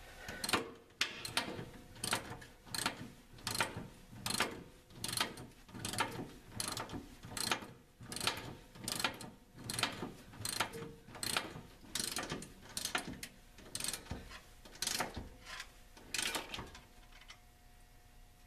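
Hand socket ratchet being worked back and forth, its pawl clicking in a short burst on each return stroke, about two strokes a second, while a nut is run up on a bolt. The clicking stops near the end.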